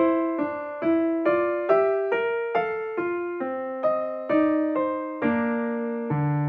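Background music: a gentle electric piano playing a slow melody of single struck notes, each ringing and fading, about two notes a second.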